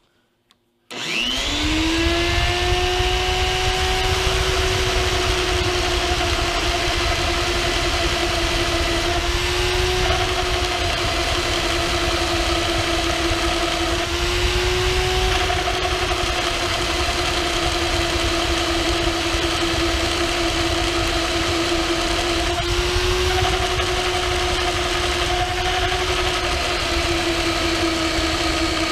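Jancy magnetic drill's motor starting about a second in, spinning up, then running steadily as a Morse taper twist drill cuts into steel plate. Its pitch sags briefly a few times as the bit bites. The bit is dull and needs sharpening.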